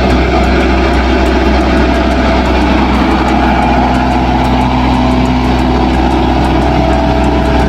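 A heavy vehicle's engine running steadily, with a strong deep hum under a rough, even noise.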